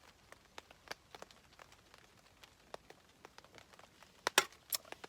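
Sparse raindrops ticking irregularly, with a few sharper clicks about four seconds in.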